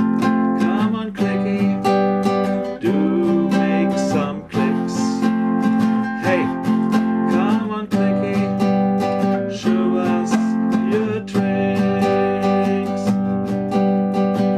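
Acoustic guitar strummed in a steady rhythm, changing chords every couple of seconds, as the instrumental close of a song.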